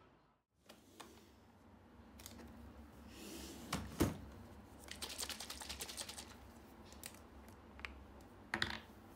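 Light taps and clicks, with a rapid run of small clicks about halfway through and a few sharper knocks.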